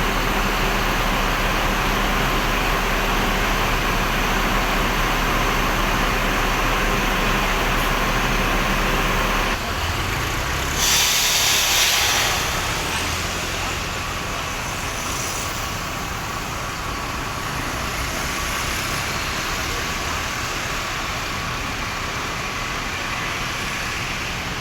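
Bus engine idling with a steady low hum. About ten seconds in the sound changes abruptly to quieter vehicle and traffic noise, and a second later comes a short, loud hiss of air.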